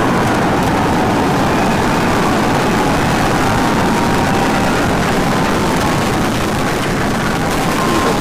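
Super Heavy booster's 33 Raptor rocket engines firing through liftoff: a loud, steady, dense rumble.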